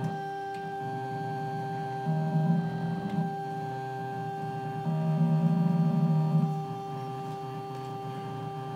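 Circuit-bent electronic instruments playing a steady electronic drone of several held tones, with a low buzzing tone swelling in and out twice, about two and five seconds in, the loudest part.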